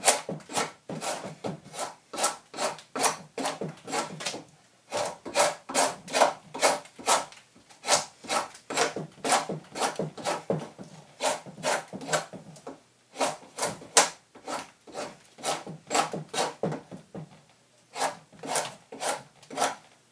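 Drawknife shaving the end of a peeled log down into a round tenon: quick repeated scraping strokes of the blade through the wood, about two to three a second, stopping briefly a few times.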